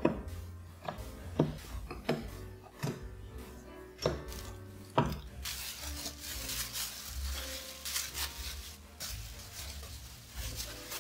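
A few sharp knocks on a metal muffin pan as rounds of cookie dough are set into the cups. About halfway through this gives way to plastic wrap crinkling steadily as it is gathered up around scraps of dough.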